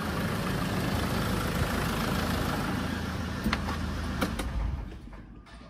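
Land Rover Defender's 2.4 Puma four-cylinder turbodiesel running at a steady idle, with a few sharp clicks, then shutting off about five seconds in.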